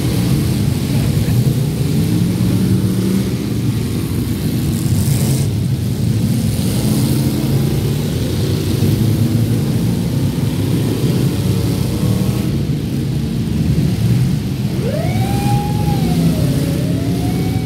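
Many stock V8 demolition derby cars running and revving together in a loud, steady engine din. Near the end a pitched sound glides up and down over it.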